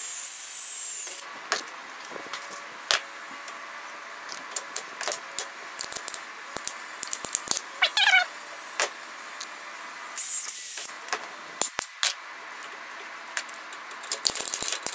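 Cordless drill spinning a small bit through rubber heater hose into the conduit for rivet holes: a short high whine at the start and again about ten seconds in. Handling clicks and taps run between. A brief wavering squeal like a cat's meow comes about eight seconds in, and a hand rivet gun clicks quickly near the end.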